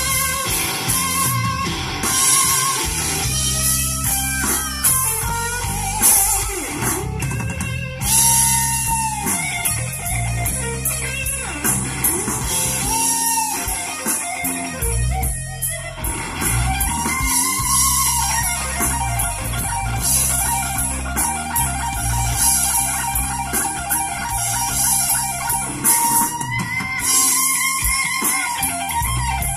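Guitar-led music played loud through a car stereo, a Kenwood KDC-100U head unit driving an Art Nouveau AN4.400 amplifier, heard inside the cabin; the speakers have been broken in over more than ten hours of play. A lead line slides in pitch over a steady bass.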